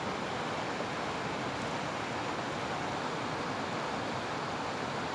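Steady rush of a fast-flowing, rocky river running in rapids.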